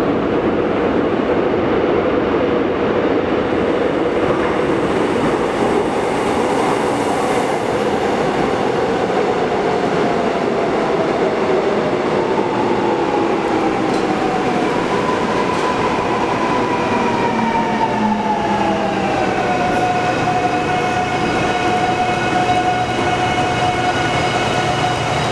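Korail 351000-series electric train pulling into an underground station: a steady rumble of wheels on rail, then from about halfway through a whine that falls in pitch as it brakes. The whine levels off into a steady hum once the train has stopped.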